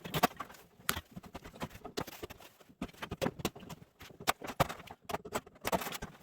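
Irregular clicks, knocks and clinks of hand tools and metal parts as an old microwave oven is taken apart for scrap, with short scraping sounds in between.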